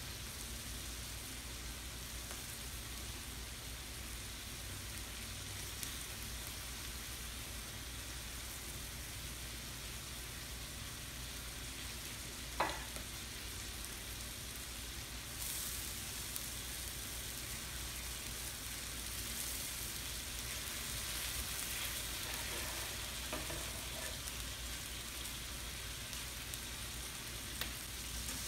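Skirt steak and sliced peppers sizzling on a stainless steel teppanyaki griddle, a steady frying hiss. A single sharp metal clink comes about twelve seconds in, and the sizzle grows louder from about fifteen seconds as the steak is worked with a knife and spatula.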